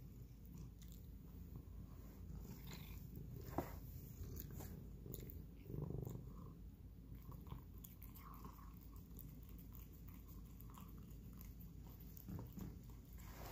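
A domestic cat purring low and steady, with faint licking and chewing of paté wet cat food from a ceramic bowl.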